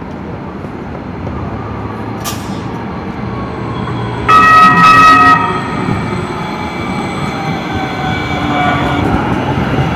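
NJ Transit Hudson-Bergen Light Rail car, a Kinki Sharyo light rail vehicle, approaching on street track with a rising rumble. About four seconds in it sounds its horn once, a loud blast of a little over a second. After that, a faint motor whine falls in pitch as it slows.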